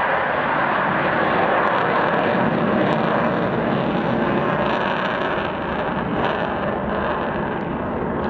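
Jet engine noise from a delta-wing jet aircraft flying past overhead: a loud, steady rush that eases a little about two-thirds of the way through.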